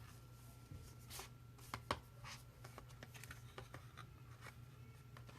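Faint rustling and light ticks of a board book's pages and flaps being handled and turned.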